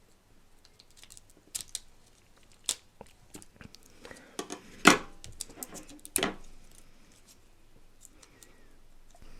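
A plastic snack wrapper being cut with scissors and handled: scattered sharp snips, clicks and crinkles, the loudest about five and six seconds in.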